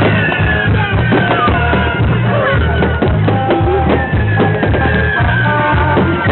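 Loud rock music with a heavy, steady bass beat.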